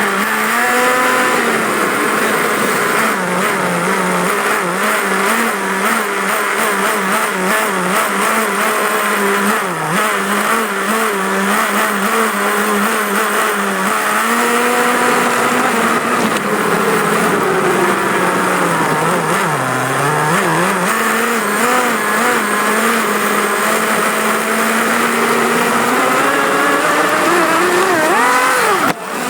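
Radio-controlled car's motor running, heard from a phone riding on the car: a steady whine whose pitch sinks and rises with the throttle, with a quick rise and drop near the end.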